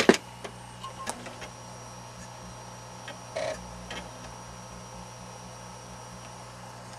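Compaq Deskpro EN desktop computer running on its repaired power supply: a steady low hum from its fans and spinning drives. A sharp click comes right at the start, with a few lighter clicks and a short rattle about three and a half seconds in as the drives and their power connectors are handled.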